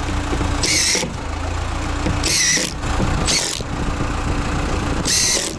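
Cordless impact driver sinking screws into OSB wall sheathing in four short bursts of hammering, over the low, steady idle of a forklift engine.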